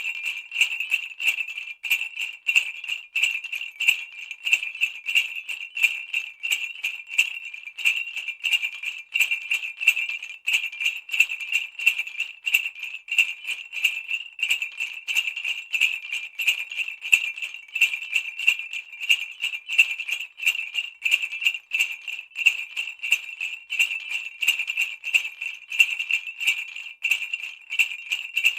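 Sleigh bells jingling continuously in a fast, steady shaking rhythm, a bright, high ringing jangle.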